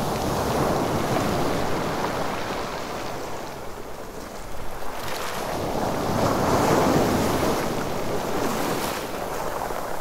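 Sea waves surging and washing back on a rocky beach. One surge ebbs away about four seconds in, and a second, louder one builds to a peak around seven seconds before easing off.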